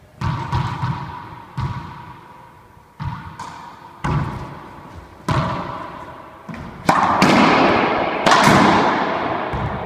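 Racquetball serve and rally: the ball cracking off racquets, the floor and the court walls about every second or so, each hit ringing on in the court's echo, with the loudest hits near the end.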